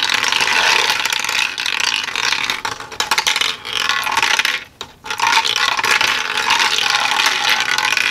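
Small metal slingshot pellets rattling and clicking as they roll through a 3D-printed plastic marble machine. A dense, continuous clatter with a short lull about five seconds in.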